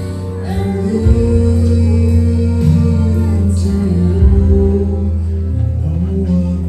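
A man and a woman singing a duet through handheld microphones over instrumental backing, holding long, sustained notes.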